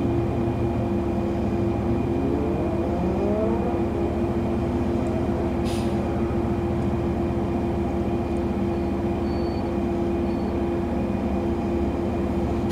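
Steady hum of a parked car's idling engine and ventilation, heard inside the cabin, with a short rising tone about two to three seconds in.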